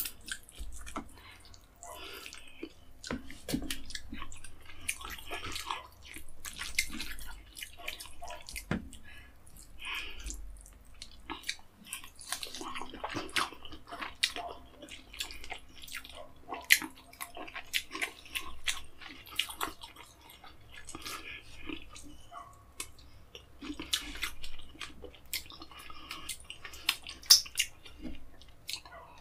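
Close-up wet eating sounds: fingers squelching through egusi soup and pulling apart a whole fish, mixed with chewing and lip smacking, as many irregular wet clicks and smacks.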